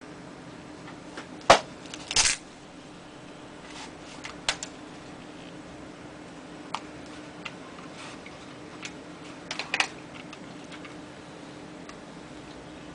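Handling noises from a plastic Accelular toy phone and its fabric belt pouch: a sharp click about a second and a half in, a short scrape just after, then scattered clicks and rustles, over a steady low hum.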